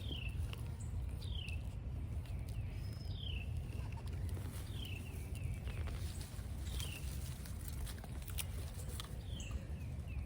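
A bird calling: a short, clear falling note, repeated about six times at intervals of one and a half to two seconds, over a steady low rumble.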